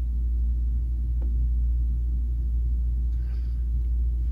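A steady low hum under the recording, with a faint click about a second in.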